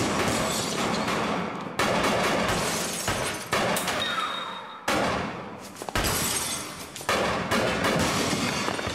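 Car window glass shattering under gunfire in a film shootout: about half a dozen sudden hits, each followed by glass breaking and tinkling and a fading echo.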